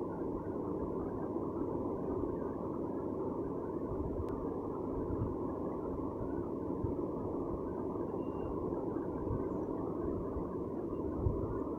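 Steady hubbub of a very large crowd of pilgrims, many distant voices blending into one even murmur.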